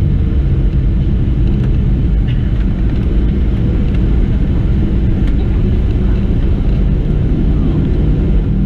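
Cabin noise inside a Boeing 737-700 just after landing: a loud, steady rumble of the engines and the wheels rolling on the runway.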